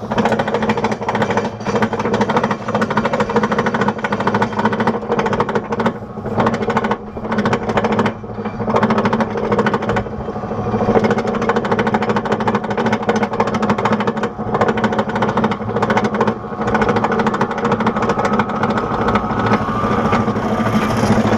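Roller coaster train being pulled up the chain lift hill: a rapid clattering of the lift chain and anti-rollback dogs over a steady hum from the lift drive.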